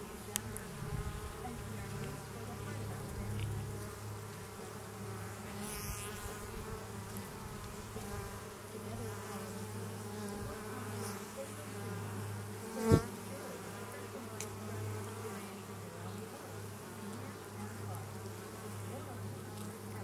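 Honey bees buzzing in a steady hum around an opened hive as a frame covered with bees is held up. A single sharp knock about two-thirds of the way through.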